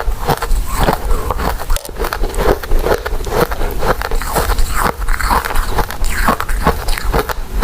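Close-miked biting and chewing of soft, sticky glutinous rice desserts: a dense, irregular run of short wet mouth clicks and smacks.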